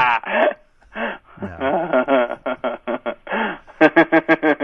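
A man laughing over a telephone line: a long, rhythmic laugh with a short pause about a second in, a horrible laugh.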